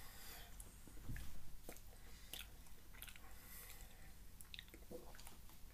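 Faint chewing and biting on a fudge brownie frozen yogurt ice cream bar, with small wet clicks of the mouth and a soft low thump about a second in.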